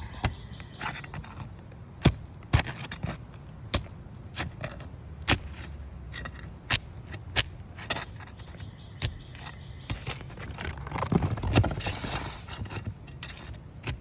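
Asphalt shingles being pried up: a run of sharp clicks and snaps as tightly sealed tabs are lifted, with a longer tearing scrape about eleven seconds in as the shingle mat rips.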